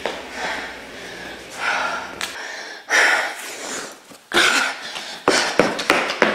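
A woman breathing hard in short, forceful breaths while exercising, with sharp thuds and taps of hands and feet on the floor over the last second or so.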